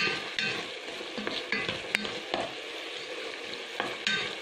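Chopped chicken sizzling and simmering in a little broth in a pot, stirred with a spoon that scrapes and knocks against the pot at irregular moments.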